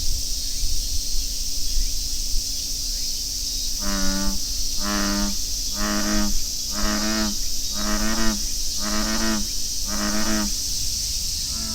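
American bullfrog calling: a run of seven deep, snore-like croaks, each about half a second long and about one a second, starting about four seconds in. Cicadas keep up a steady drone throughout.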